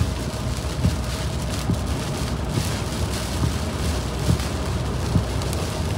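Car driving on a rain-soaked highway, heard from inside the cabin: steady tyre and road noise mixed with the hiss of rain, with a soft bump a little under once a second.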